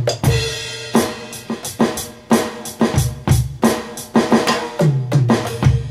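Alesis Surge mesh electronic drum kit played through its sound module: a steady beat of kick, snare and cymbal hits. A tom fill runs down the kit, falling in pitch, about five seconds in.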